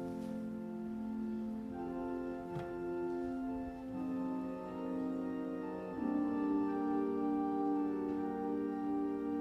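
Organ music: slow held chords that change every couple of seconds.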